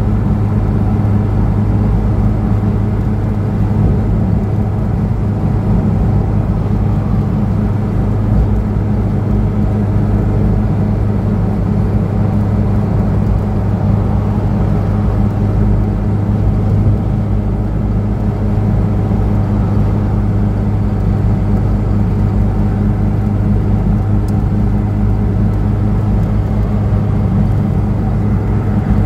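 1997 Reliant Robin's small four-cylinder engine droning at a steady pitch while cruising at motorway speed, heard from inside the cabin along with road and wind noise.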